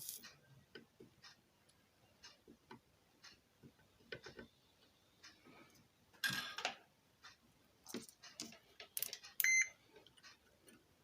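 Bench work on a ceiling fan motor's winding: scattered light clicks and taps of tools and wires, a louder metallic clatter about six seconds in, and a short beep about nine and a half seconds in, which, as the winding is being tested, fits a multimeter.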